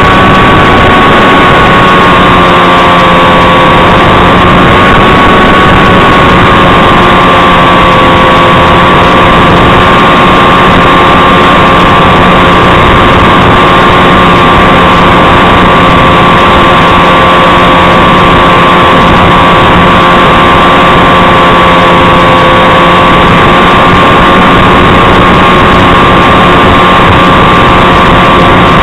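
Steady whine of a SkySurfer 1400's electric motor and propeller, dipping slightly in pitch a few seconds in, over loud rushing wind noise.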